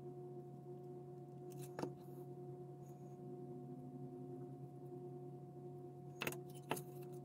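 Faint clicks of plastic model parts being handled and set down on a workbench: one sharp click about two seconds in and two close together near the end. A steady low electrical hum runs underneath.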